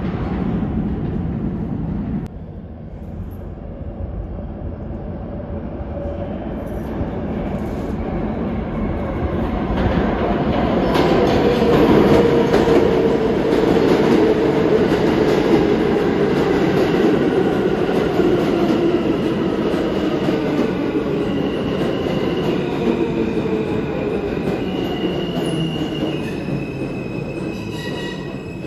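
New York City subway train in the station, growing louder over about ten seconds and then slowly easing off. Its motors whine in tones that glide down and then step through several pitches toward the end, with some wheel squeal.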